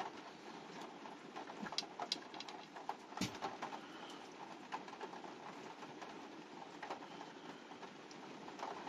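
Faint clicks and taps from handling the small plastic and metal parts of an RC crawler's shock absorber, with one sharper click about three seconds in, over a faint steady background.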